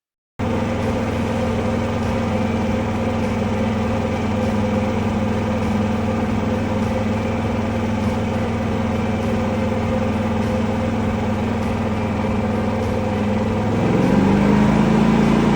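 Predator 11,500 W tri-fuel inverter generator running steadily. About fourteen seconds in, its engine speeds up and runs louder.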